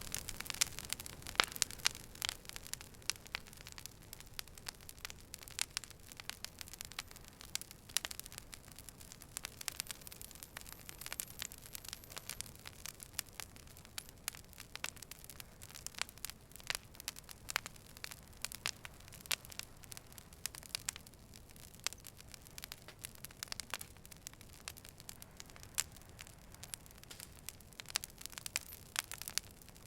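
Fire burning with dense, irregular crackling and snapping over a soft hiss.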